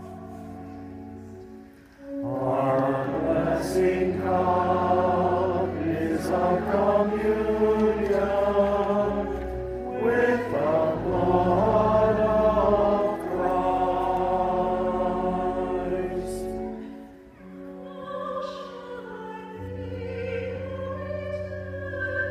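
Choral music: voices singing long held chords over a low sustained bass. It swells loud about two seconds in and falls back to quieter held tones near the end.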